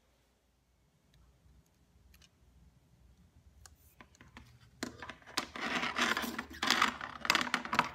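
Small plastic drone parts and hand tools being handled on a tile tabletop: a few faint clicks at first, then from about five seconds in louder scraping and rattling with sharp clicks.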